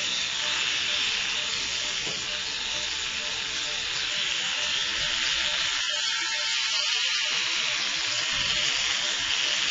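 Electric animal clippers running steadily, shaving fur from around a dog's wounds, heard as an even buzzing hiss.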